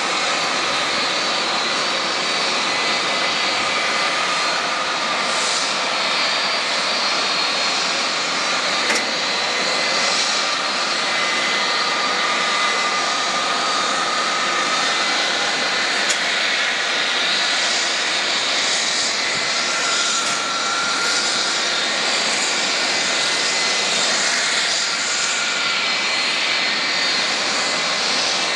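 Jet airliner engines running: a steady rushing noise with a faint high whine that drifts a little in pitch.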